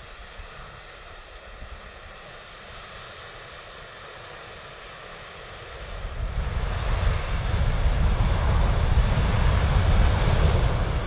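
Thousands of matchsticks burning: a steady hiss of match heads igniting, which about six seconds in swells into a loud rushing, rumbling noise as the whole matchstick model flares up into a fireball.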